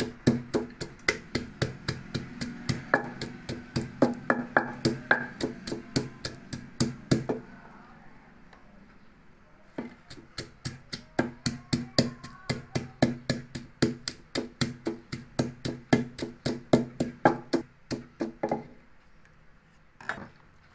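Wooden pestle pounding garlic cloves and chillies in a deep wooden mortar: quick dull knocks, about five a second. They stop for about two seconds near the middle, start again, and one last knock comes near the end.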